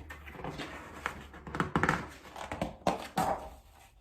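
A picture book being handled and opened by hand: a series of soft, irregular taps, thumps and paper rustles.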